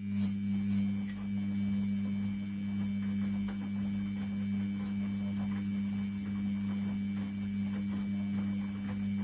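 Washing machine running with a steady electric motor or pump hum, a low drone with a faint high whine and light crackling over it. It switches on abruptly.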